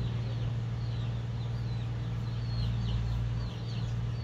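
Birds chirping: short, high, downward-sliding chirps repeating many times, over a steady low hum.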